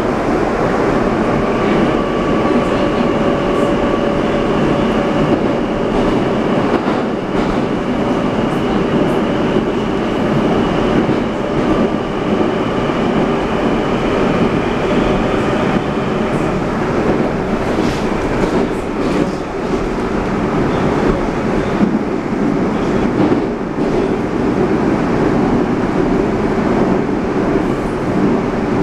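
Moscow Metro 81-740/741 'Rusich' articulated train running through a tunnel, heard from inside the car: a steady rumble of wheels on rails with scattered clicks. A faint high whine sits over the first half and fades about halfway through.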